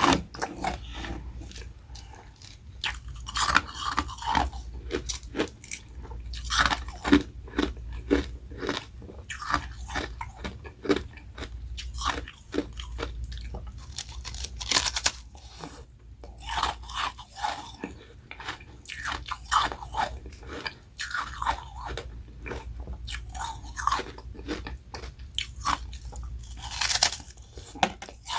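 A person biting and chewing ice close to the microphone: carbonated ice rounds topped with shaved freezer frost, crunching in repeated bursts of crackling crunches.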